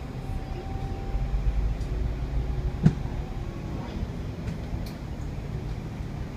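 Dennis Enviro 400 double-decker bus under way, heard from inside the lower deck: a steady low engine and road rumble, with a faint whine that fades after about two seconds and a single sharp knock about three seconds in.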